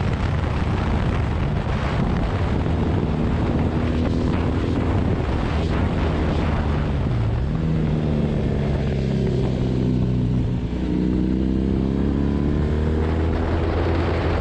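Onboard sound of a motorcycle engine at track pace, with wind rush over the microphone at speed. The engine note drops as the bike slows from about 60 to 35 mph for a corner. It breaks briefly about eleven seconds in, then climbs steadily as the bike accelerates out.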